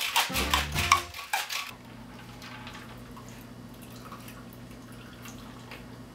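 Ice rattling hard inside a stainless steel cocktail shaker as it is shaken, stopping after about a second and a half. Then a faint pour of the drink through the shaker top into a glass, with a few soft clinks over a low steady hum.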